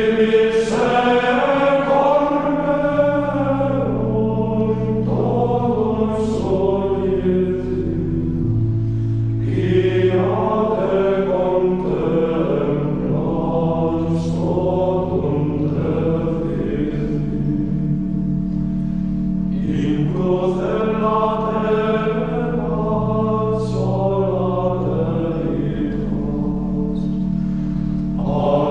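Choir chanting slow sacred music in phrases over sustained low held notes.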